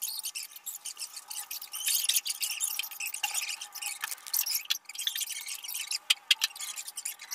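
Background music with a steady tone and a busy, clicking top end.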